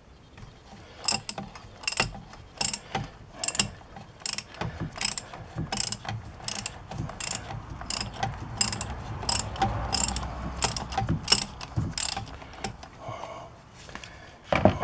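Socket ratchet wrench clicking in regular strokes, about one to two clicks a second, as the 24 mm oil filter housing cap of a 2019 Chevy Trax engine is turned.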